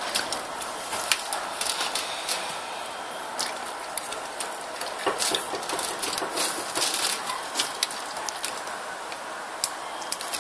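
German Shepherd chewing grapes: a run of irregular sharp mouth clicks and smacks over a steady background hiss.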